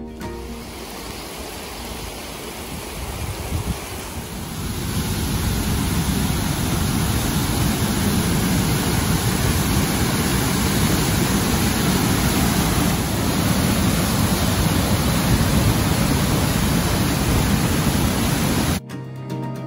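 Reichenbach Falls' upper cascade: a steady rush of falling water, growing louder about four to five seconds in.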